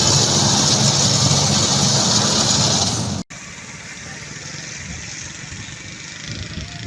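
Construction machinery engine running steadily with a loud hiss over a low hum. About three seconds in, the sound cuts off abruptly and gives way to a quieter engine hum.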